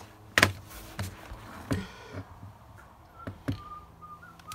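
Scattered sharp clicks and knocks of tape measures and hand tools being handled on a vinyl plank floor, about five in all. A faint whistled note comes in near the end.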